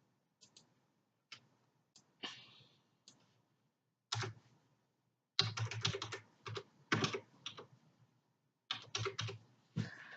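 Typing on a laptop keyboard: a few scattered keystrokes, then quick runs of keys from about five seconds in.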